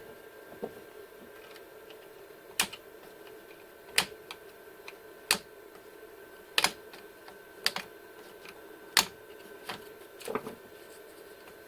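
Plastic cable drag chain links clicking as they are pried open and snapped shut: a series of sharp clicks, roughly one every second or so, over a faint steady hum.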